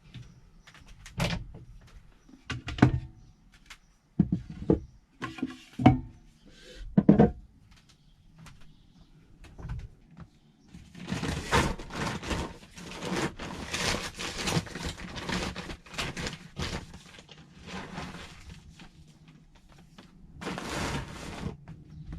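A few sharp knocks and thuds, then a long stretch of scratchy rustling and scraping, with another short burst of rustling near the end.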